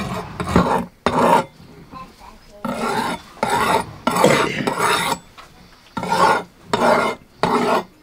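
Steel knife blade being sharpened by hand on a whetstone: a series of short rasping strokes, roughly one every 0.7 s, with a brief pause about a second and a half in.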